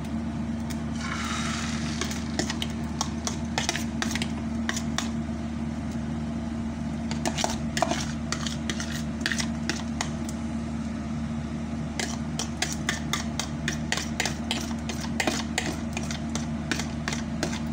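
Beaten egg poured into hot oil in a frying pan, with a brief sizzle about a second in, then repeated clicks and taps of a bowl and utensil against the pan, over a steady mechanical hum.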